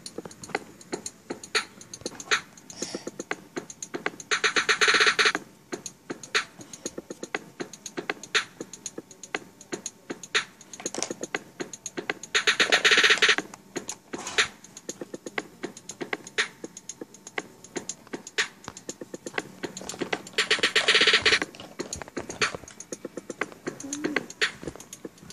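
Background music with a quick percussive beat, with a loud noisy swell about every eight seconds.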